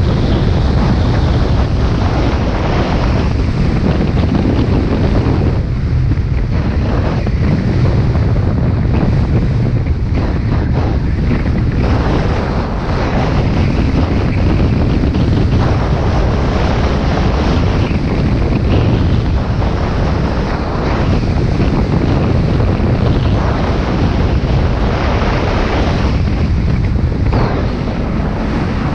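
Wind buffeting a moving action camera's microphone while skiing downhill, mixed with the hiss and scrape of skis running over spring snow.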